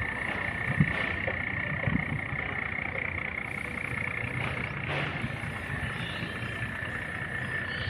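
Boat engine running steadily, a low rumble with a steady high whine over it.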